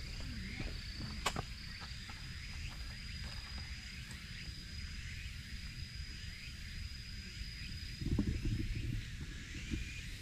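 Insects trilling: one steady high-pitched trill held throughout, with scattered short chirps, over a low outdoor rumble. A louder low noise lasts about a second, about eight seconds in.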